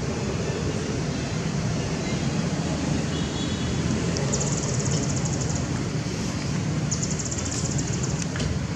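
Steady outdoor background noise, a low rumble and hiss without clear monkey calls, with two short spells of fast high-pitched pulsing about four and seven seconds in.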